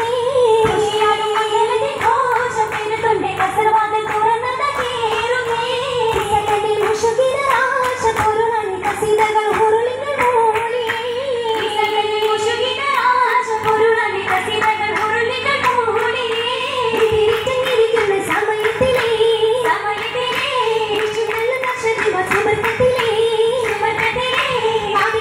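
Oppana song: a high female voice singing a Mappila-style melody, with the dancers' rhythmic hand claps keeping the beat.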